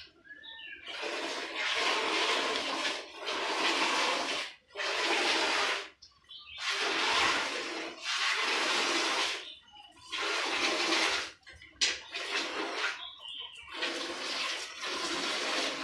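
Milk squirting by hand from a cow's teats into a metal pail: a steady frothy hiss in stretches of a second or more, broken by short pauses several times.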